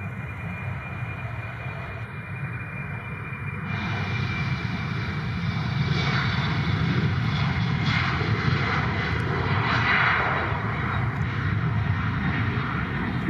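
Embraer E195 jet's twin GE CF34 turbofan engines at takeoff power on departure, a steady rushing jet roar that grows louder and fuller over several seconds.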